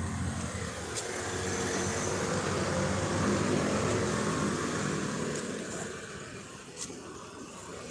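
Street traffic: a motor vehicle's engine passing close, growing louder to about three seconds in and then fading away.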